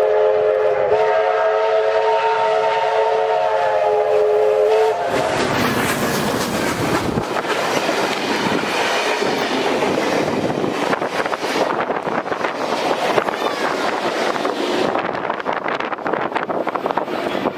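Steam locomotive 3237 sounds its whistle, a chord of several tones held for about five seconds, then the locomotive and its carriages pass close by, wheels clattering over the rail joints as the train runs away.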